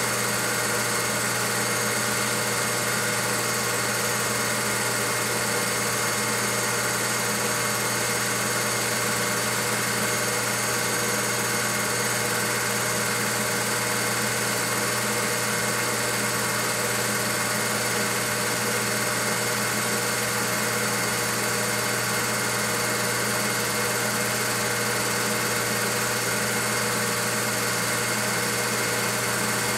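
Steady, unchanging mechanical whir and hum of a running film projector. It is the noise of transferring a silent home movie, not sound from the scenes shown.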